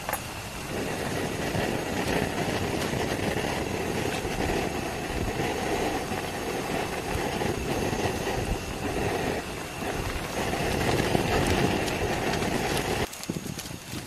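A small aluminium camping pot of noodles boiling on a gas-canister stove: a steady rumbling bubbling with burner hiss, starting about a second in and cutting off shortly before the end.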